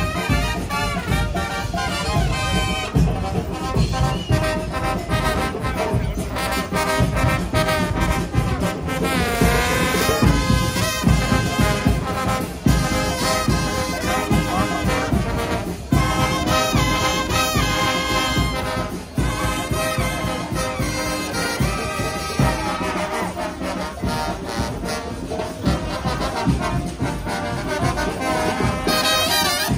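Brass band of trumpets and trombones playing loudly, with a rising glide across the horns about ten seconds in.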